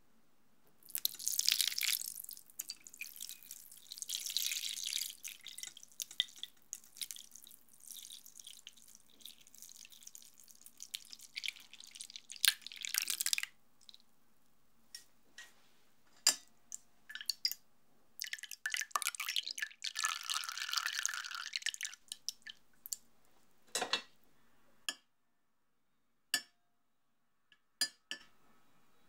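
Raspberry jelly liquid poured from a saucepan through a paper-lined mesh strainer into a glass bowl, splashing and dripping for about twelve seconds, then a second, shorter run of pouring. A few sharp clinks of a metal spoon against the glass bowl near the end.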